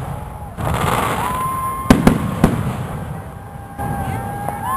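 Fireworks going off: a crackling hiss, then three sharp bangs in quick succession about two seconds in, with steady high whistling tones in between and another bang at the end.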